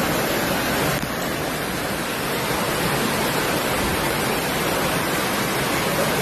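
Rushing floodwater: a steady, dense rush of water noise with no pauses, easing slightly about a second in.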